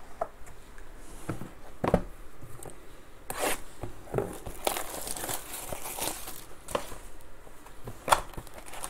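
Plastic wrap crinkling and tearing as a sealed box of trading cards is unwrapped and opened, in irregular bursts. Light knocks of the cardboard box being handled come in between, the sharpest about eight seconds in.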